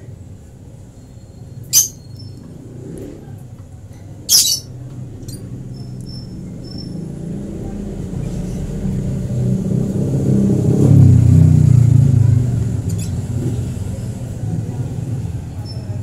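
A few short, high chirps from baby African lovebirds being hand-fed, two of them sharp and loud in the first five seconds. A motor vehicle's low engine rumble swells, is loudest about eleven seconds in, then fades.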